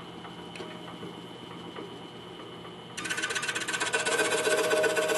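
DeWalt scroll saw: a quiet steady hum at first. About three seconds in, it turns much louder with a rapid rasping stroke as the blade starts cutting into a small piece of wood.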